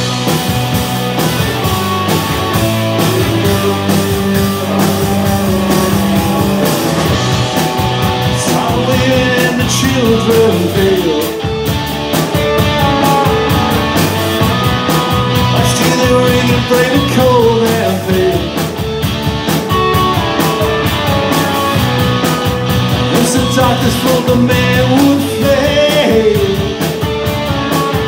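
Live rock band playing: electric guitars, bass and a drum kit, with a voice singing a melody from about nine seconds in.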